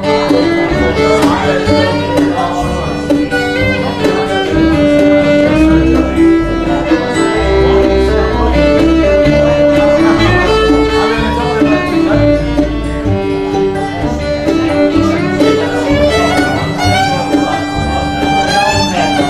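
Instrumental break in a country song: a fiddle carries the melody over guitar and a steady bass line.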